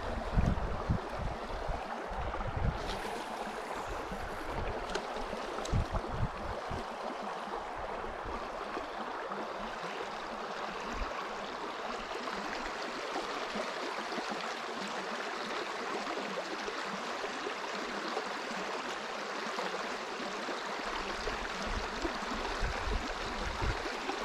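Steady rush of flowing river water, with a few low thumps in the first several seconds and again near the end.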